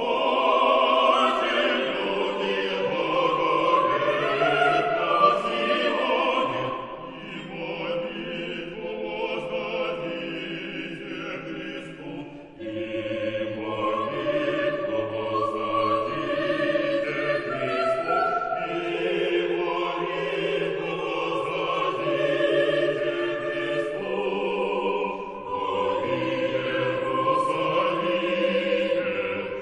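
Russian male vocal ensemble singing a choral piece in several parts, with a low bass line under the upper voices. The singing comes in at once and pauses briefly between phrases twice.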